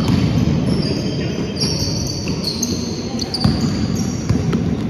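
Basketball game in play: many short sneaker squeaks on the court floor and knocks from a ball bouncing and players' footfalls, with voices in the background.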